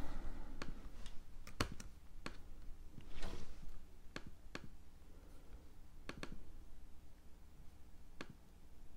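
Sparse, irregular single clicks of a computer pointer being worked as items are selected on screen, with a brief rustle a little after three seconds.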